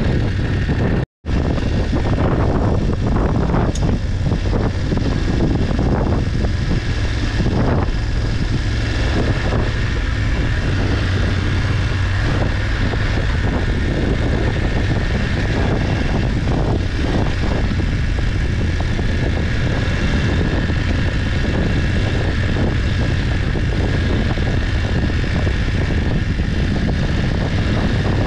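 Adventure motorcycle engine running steadily while riding a dirt track, with a continuous rush of wind and road noise over the microphone. The sound cuts out completely for an instant about a second in.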